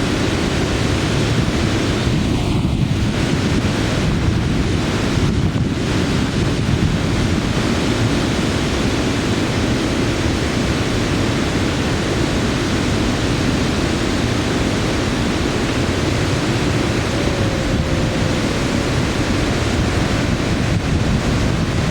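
Steady, loud rush of river water during a raft trip, mixed with wind buffeting the microphone.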